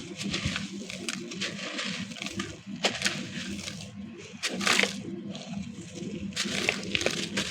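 Wet, gritty concrete chunks being crumbled and crushed, with irregular crackling and grinding crunches. There is a sharp crack about three seconds in and a louder crunch a little before five seconds.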